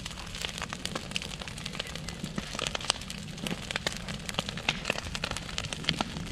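Large brush-and-wood bonfire burning, with many sharp, irregular crackles and pops over a low steady rumble.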